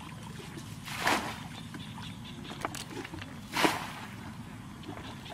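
Water splashing in a shallow muddy ditch, two short splashes about two and a half seconds apart, over a low steady hum.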